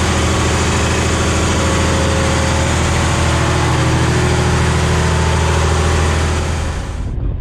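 A tug's newly fitted Caterpillar marine diesel main engine running steadily on a test run, loud inside the engine room. Near the end the engine noise drops away sharply, leaving quieter wind.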